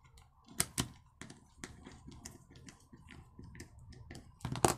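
Scattered small clicks and ticks of a screwdriver working the centre screw that holds the pulley of a chainsaw's recoil starter, with plastic starter parts knocking. Two sharp clicks come about half a second in, and a louder cluster of knocks comes near the end.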